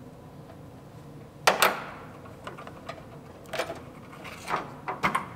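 Washer hose and plastic clips being pried loose from a car's plastic cowl screen with a pick: a sharp plastic snap about one and a half seconds in, then several softer clicks and rattles near the end.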